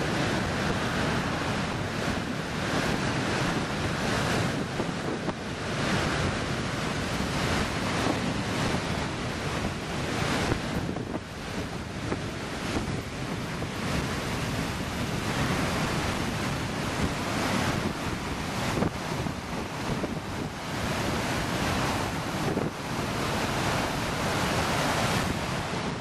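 Heavy surf from a big ocean swell breaking on the shore: a constant rushing noise that swells and eases, with wind buffeting the microphone.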